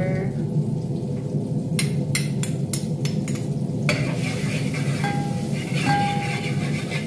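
Garlic sautéing in butter in a small aluminium pot while a metal spoon stirs it, clinking against the pot several times about two to three seconds in. A hissing sizzle grows brighter about four seconds in, over a steady low hum.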